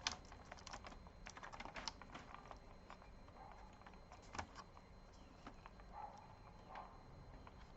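Faint, irregular clicks and taps of plastic laptop parts being handled while the logic board is worked loose from the chassis.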